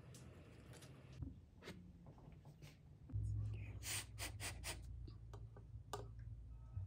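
Light clicks and taps of wooden chopsticks and a metal spoon against ceramic bowls and a sauce dish, with a quick run of clicks a little past the middle. A low steady hum comes in suddenly about three seconds in.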